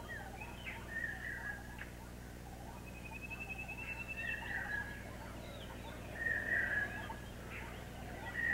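Birds calling in short, separate chirps, with a thin trilling call about three seconds in and a louder chirp after about six seconds, over a steady low hum.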